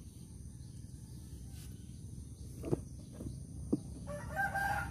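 Quiet outdoor background with a few faint clicks, then, about four seconds in, a chicken calls for about a second.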